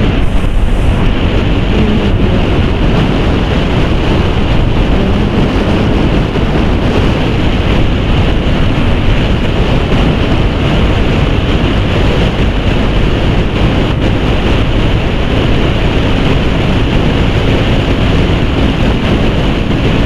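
Steady, loud wind rush over the microphone of a Bajaj Pulsar NS200 motorcycle riding at highway speed, about 80 to 95 km/h, mixed with the bike's single-cylinder engine and tyre noise.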